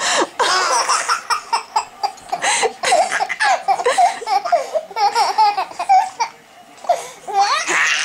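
Twin toddlers laughing at each other in a quick run of short, high-pitched giggles and belly laughs, with a brief lull about six seconds in.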